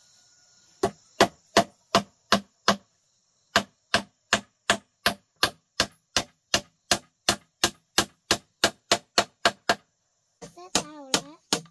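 Steady chopping strikes, about three a second, with a short break about three seconds in.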